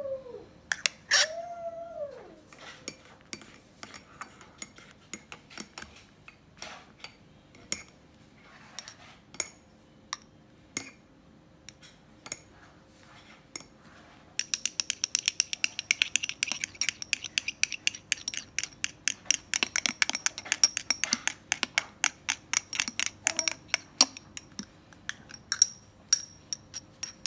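Metal spoon clinking against a ceramic mug and a small glass. There are scattered taps at first, then from about halfway in a rapid, continuous clinking with a high ringing tone. A dog howls briefly at the start.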